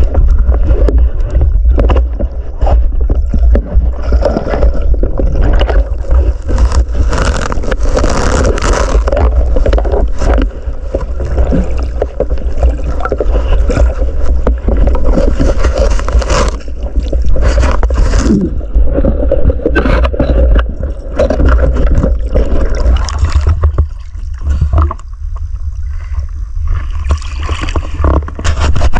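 Muffled underwater noise picked up by a diver's camera: a constant low rumble of moving water, with bubbling and many short knocks and scrapes. The noise thins out near the end as the diver reaches the surface.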